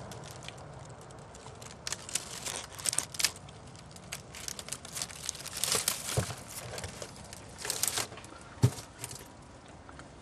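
Dry reed stalks rustling and crackling as someone pushes through a dense reed bed. There is irregular snapping throughout, with a few louder cracks in the second half.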